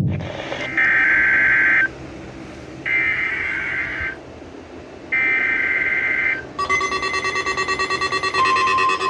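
NOAA Weather Radio alert tones: the EAS/SAME digital header, three screeching data bursts of about a second each, a second apart. About six and a half seconds in, a long high alert tone follows, fast-pulsing at first and then steady from about eight seconds in.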